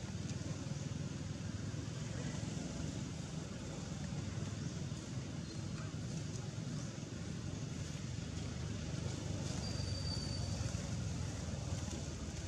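Steady outdoor background rumble and hiss with no distinct events, and a faint, brief high whistle about ten seconds in.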